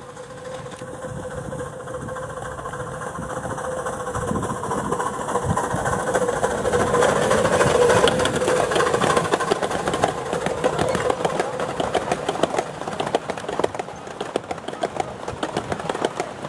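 Miniature steam locomotive hauling a passenger train, getting louder as it passes close about halfway through, then a quick run of rhythmic beats as the train pulls away.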